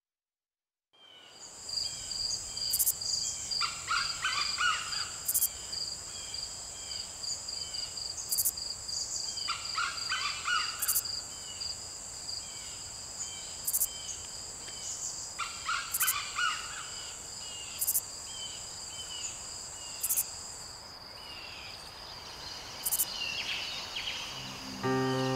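Forest ambience: a steady high insect drone that stops about 21 seconds in, a faster pulsing insect call underneath, and bird calls in short bursts about every six seconds. Music begins at the very end.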